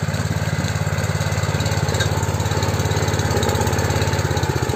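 Small Honda petrol engine on a walk-behind power weeder running steadily, a fast, even putter.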